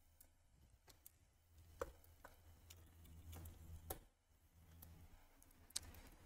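Near silence with a low hum, broken by a few faint, light taps and clicks, the clearest about two, four and six seconds in, as hands handle a laptop's display panel and its cable.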